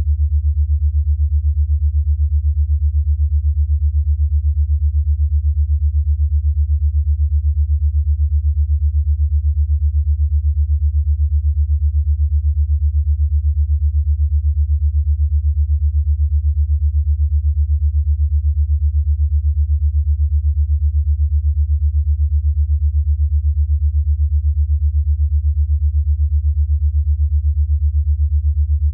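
A low, steady electronic sine tone with a rapid, even pulsing: an 8 Hz alpha-wave brainwave-entrainment tone.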